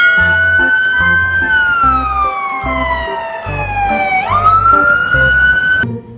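Fire engine siren wailing: the tone holds high, falls slowly over about three seconds, then swoops quickly back up and cuts off suddenly near the end.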